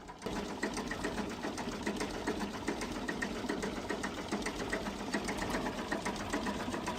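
An engine running steadily with a fast, even clatter, starting just after a cut.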